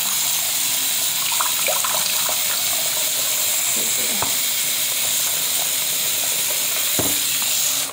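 Tap running steadily into a sink, shut off abruptly near the end.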